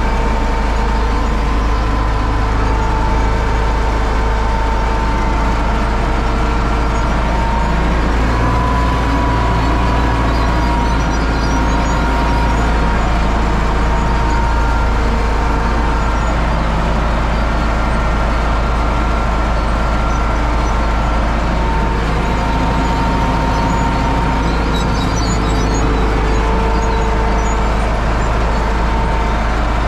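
Universal U650 tractor's four-cylinder diesel engine running steadily under load while pulling a seed drill, a loud even drone with a faint wavering whine above it.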